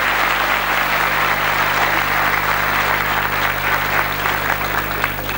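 A large seated audience applauding steadily, the clapping thinning out into scattered claps near the end.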